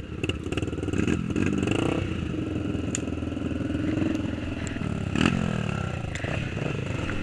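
Trail motorcycle's single-cylinder four-stroke engine revving up and down under load, its pitch rising and falling.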